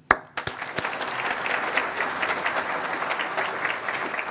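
Audience applauding: many hands clapping together, building within the first half second and then keeping up steadily.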